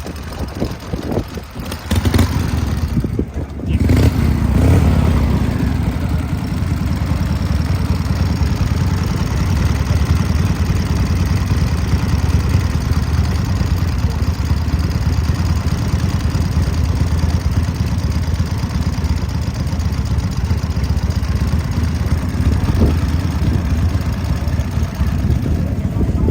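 Motorcycle engine running steadily, a loud, even low rumble that sets in about two seconds in.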